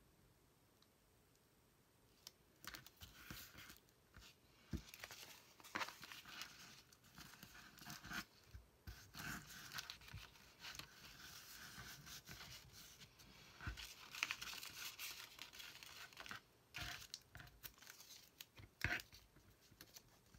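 Soft paper rustling and crinkling as a folded paper map is handled and pressed flat, with washi tape being pulled and torn, starting about two seconds in and going on irregularly with small clicks.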